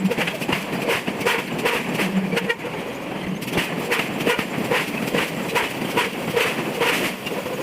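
Power forging hammer striking steel in a rapid run of repeated blows, about three a second, each with a short metallic ring.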